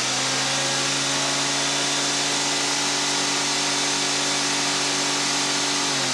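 Titan thickness planer running unloaded at full speed on a test run after reassembly: a steady motor hum with several steady tones over a strong hiss from the spinning cutter head, beginning to run down right at the end. The owner hears it running a bit smoother.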